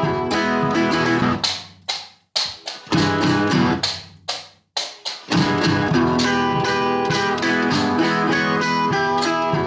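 Background music led by plucked guitar, breaking off briefly twice, about two and four and a half seconds in.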